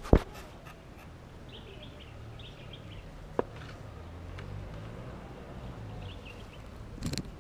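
Birds chirping in two short runs over a low steady outdoor rumble, with a sharp knock at the very start, a smaller knock about three seconds in, and a brief burst of noise near the end.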